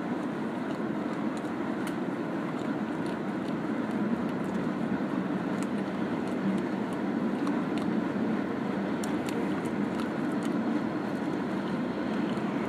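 Steady rumble of a column of snow plow trucks driving over a slushy road, slowly growing louder as they approach, with a few faint ticks.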